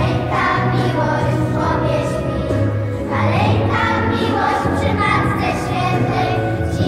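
Children's choir singing a Christmas carol over instrumental accompaniment with a steady bass line.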